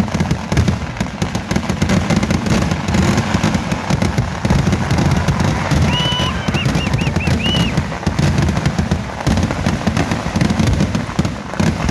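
A continuous rapid barrage of firecracker explosions from a Kerala temple-festival fireworks display, dense and unbroken like machine-gun fire. A short warbling high whistle sounds about six seconds in.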